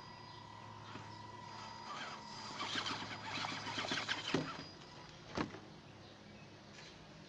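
A Vaterra Ascender RC rock crawler's tyres and chassis scraping and clattering over rocks as it climbs. The truck then tips over: one sharp knock about four seconds in and another about a second later as it comes down on its side.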